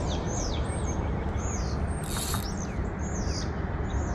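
Songbirds chirping and singing, a quick run of short high calls, several a second, over a steady low rumble. A brief hiss about two seconds in.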